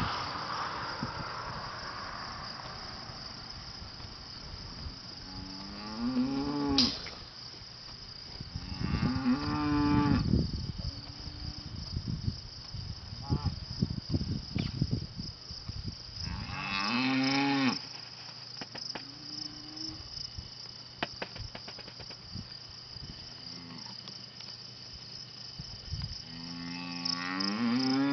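Cattle mooing: several long, drawn-out moos rising and falling in pitch, with quieter calls between. A steady high chirring of crickets runs underneath.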